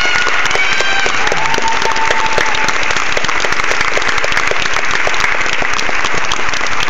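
Audience applauding steadily, with a few voices calling out over the clapping near the start.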